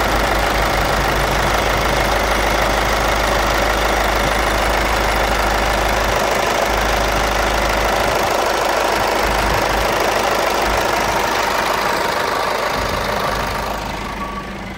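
Volkswagen Golf 6 2.0 TDI four-cylinder diesel idling steadily, heard close up at the intake manifold. Near the end the sound falls away.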